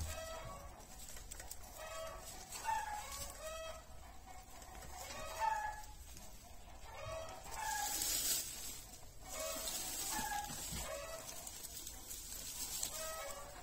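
Domestic hens clucking, a steady run of short calls two or three a second, with a brief rustle about halfway through.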